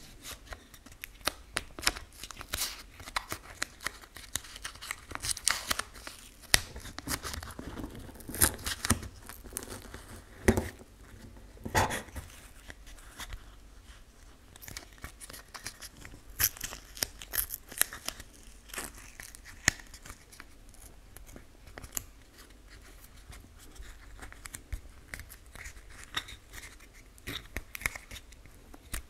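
Paper masking tape crinkling, crackling and tearing as it is handled and pressed around the edges of a 3D-printed plastic badge, in irregular bursts that are busiest in the first half.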